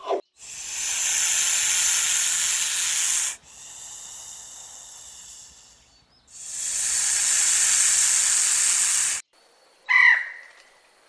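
Indian cobra hissing: two long, loud hisses with a softer hiss between them. Near the end comes a single short call from an Indian peacock.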